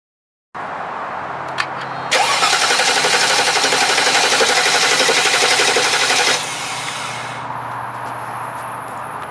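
A 2000 Mercedes-Benz S500's 5.0-litre V8 being cranked by the starter motor in a steady, even rhythm for about four seconds, then the starter stops. The engine turns over without catching, the typical sign of a failed crankshaft position sensor. There is a click just before the cranking begins, and a steadier, quieter sound continues after it.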